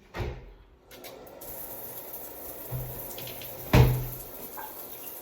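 Shower head spraying water, a steady hiss that starts about a second in, with a knock at the very start and a louder thump a little before four seconds in.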